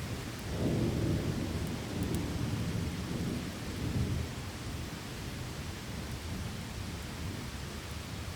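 Steady rain with a low rumble of thunder that swells about half a second in and dies away after about four seconds.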